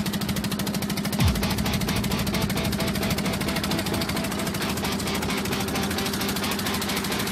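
Fishing boat's engine running steadily with a fast knocking beat, and one low thump just over a second in.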